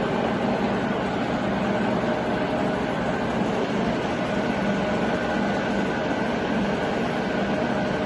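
Sachman bed milling machine's table traversing lengthwise under power feed: the feed drive motor and gearbox give a steady mechanical whir with a few steady tones.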